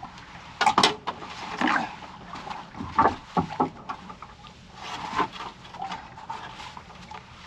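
Irregular knocks and bumps of handling on a small fishing boat: a sharp pair about a second in, then scattered single knocks over a steady background.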